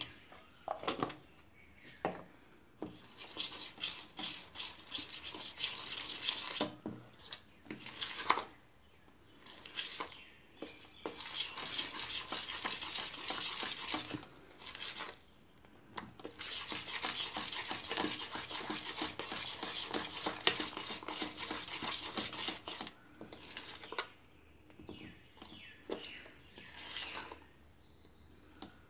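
A metal spoon stirring and beating cake batter of flour and egg in a stainless steel bowl: rapid scraping and clinking against the bowl in long spells with short pauses, and a few separate clinks near the start and the end.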